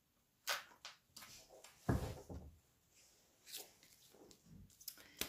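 An oracle card deck and its box being handled: a few soft knocks and rustles as the deck is picked up and taken out. The loudest is a dull thump about two seconds in.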